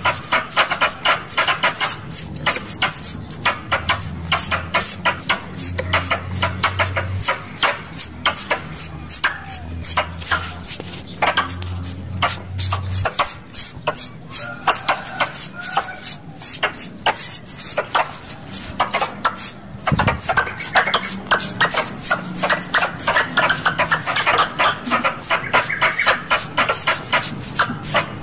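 Tupai (squirrel) calls played as a lure: a continuous run of sharp, high-pitched chirps, about four a second, over a low hum that stops about halfway through.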